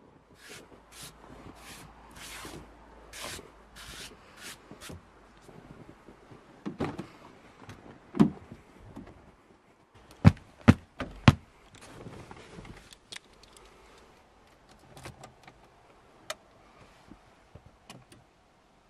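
A bare hand sweeping snow off a car windscreen in about eight quick swipes, followed by a car door being handled with a couple of thuds, three sharp knocks a little past halfway, and a single click near the end.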